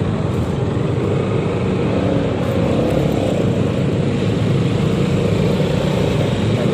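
Yamaha XMAX 300 scooter running steadily while being ridden through traffic. Its engine and road noise make a constant rushing sound.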